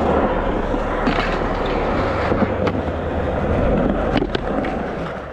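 Skateboard wheels rolling over a concrete skatepark surface in a steady rumble, with a few sharp clacks of the board against the ground as the skater flips it.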